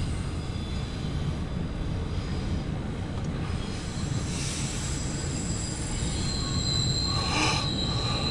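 Double-stack intermodal freight cars rolling past: a steady low rumble of wheels on rail, with a high, steady wheel squeal setting in about six seconds in.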